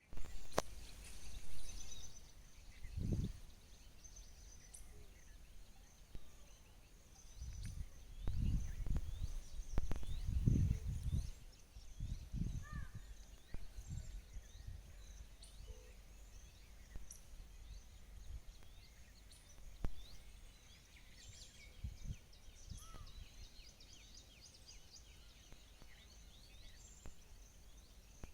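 Outdoor ambience of small birds chirping and twittering throughout, with several bursts of low rumble, the strongest about eight to eleven seconds in.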